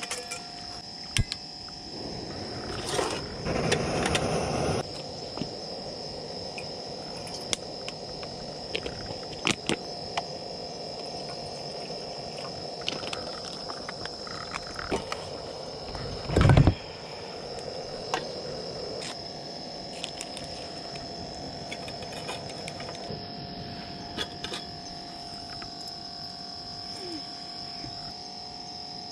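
Frogs calling under a steady high-pitched drone. Scattered clicks and knocks sound over it, with a rustling stretch a few seconds in and one loud knock just past halfway.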